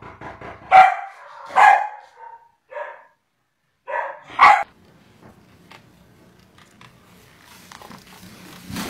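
A dog barking: about five loud, short barks in the first five seconds, then only faint clicks and room noise.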